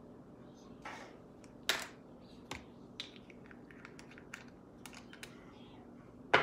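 Light clicks and taps of small makeup items being handled and set down on a tabletop, a string of small ticks in the middle, with two louder knocks, one about two seconds in and one near the end.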